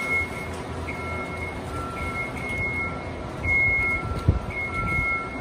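Construction-equipment warning alarms beeping on and off at two pitches, over the low running of a heavy machine's engine, with one thud about four seconds in.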